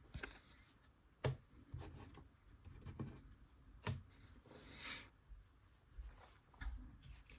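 Faint handling of trading cards: a light click about a second in and another near four seconds, then a short slide as cards are set down on the desk mat near five seconds.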